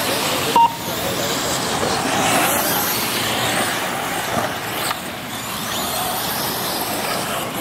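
Electric 1:8-scale RC off-road buggies racing round a dirt track, a steady noisy rush of motors and tyres on dirt. A short loud beep about half a second in.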